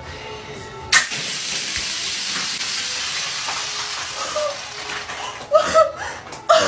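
A plastic squeeze ketchup bottle, pressurised by baking soda reacting with the ketchup, bursts open suddenly about a second in, and a jet of ketchup and gas hisses out steadily for about three seconds. Near the end a woman cries out several times.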